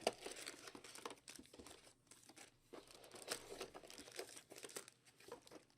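Plastic wrapping on a trading card box or pack being crinkled and torn open by hand: faint, irregular crackling with a sharp snap right at the start.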